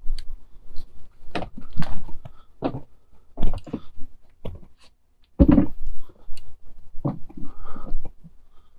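Furniture pieces being loaded into a pickup truck bed: irregular knocks, thuds and scrapes as they bump against the bed and each other, with the loudest thud a little past halfway.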